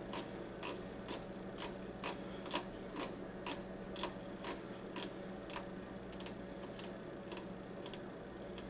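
Rotary control dial of a Ninja Foodi Deluxe pressure cooker being turned notch by notch to set the cooking time, clicking about twice a second; the clicks grow fainter and sparser near the end.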